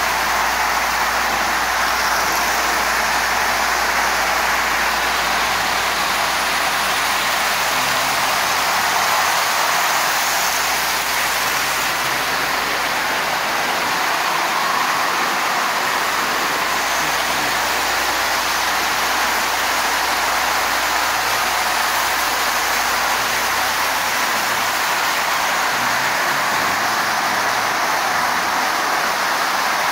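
Several Marx tinplate toy trains running at once on three loops of metal track. Their wheels and motors make a steady, even rushing noise with no breaks.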